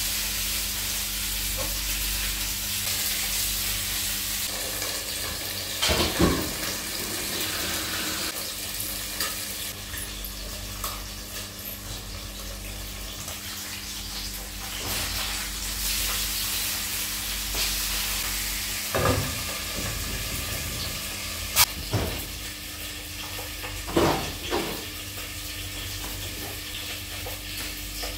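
Pieces of sea bass sizzling steadily as they fry lightly in hot oil in a pan. A few sharp clinks of a utensil against the pan come about six seconds in and several more between about nineteen and twenty-five seconds in, over a steady low hum.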